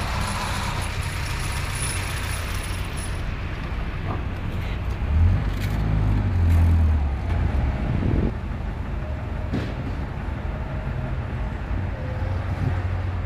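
WWII jeep's four-cylinder flathead engine running at low parade speed, heard from the driver's seat of the open jeep as a steady low rumble. It swells louder for a couple of seconds about five seconds in.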